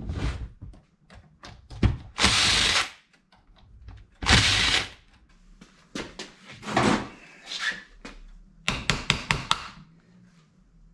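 Tools working on a motorcycle engine's cylinder parts: scattered clicks and knocks, two short noisy bursts about two and four seconds in, and a quick run of sharp clicks near the end, as a part that was glued on is worked loose.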